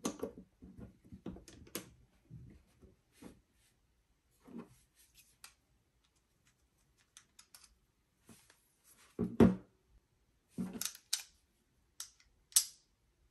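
Handling of a precision screwdriver bit case: small bits and tools clicking in and out of its slots, with scattered light clicks and taps and a louder knock a little after nine seconds.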